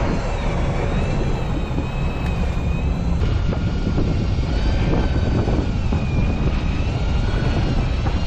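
Boat engine running steadily: a low drone with a faint whine above it that wavers slowly up and down in pitch.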